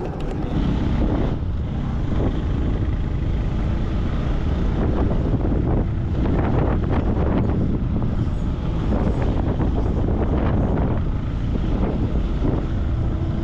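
Motorcycle being ridden at low road speed, its engine running steadily under heavy, gusty wind rumble on the microphone.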